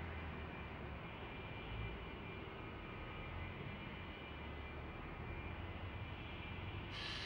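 Steady low outdoor background rumble with a faint hiss and no distinct event; a brighter hiss comes in near the end.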